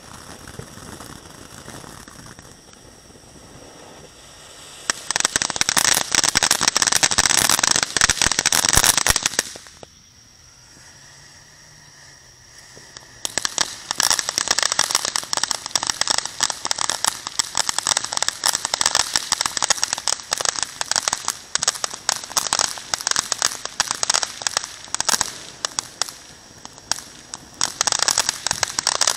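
Consumer ground-fountain fireworks spraying sparks with dense, rapid crackling. A fainter hiss at first gives way to loud crackling about five seconds in. This drops to a lull near the ten-second mark, and the crackling starts up again a few seconds later and keeps on.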